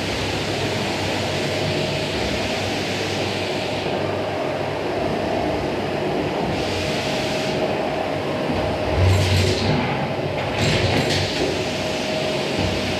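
Vacuum cleaner running steadily with a whining tone over its rushing air noise, with two brief louder rushes of air in the last few seconds as the nozzle works the floor.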